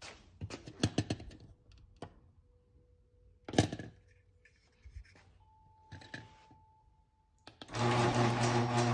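Handling noise and steps with one sharp knock, then about seven and a half seconds in a LiftMaster 8365 garage door opener starts up, its motor running with a steady hum as it lifts the door.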